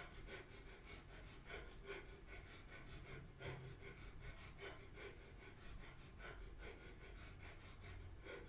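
Faint breath of fire: rapid, rhythmic, forceful breathing through the nose, pumped from the navel, at about two to three breaths a second.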